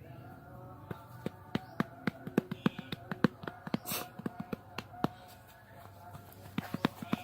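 A run of sharp, irregular taps or clicks, several a second, starting about a second in, pausing briefly, then picking up again near the end.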